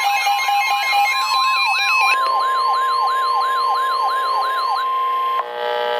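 Weather-radio emergency alert tones: a steady single-pitch alert tone with a fast, repeating electronic warble over it. About two seconds in, the warble slows and widens, stopping near the five-second mark. The steady tone cuts off a moment later.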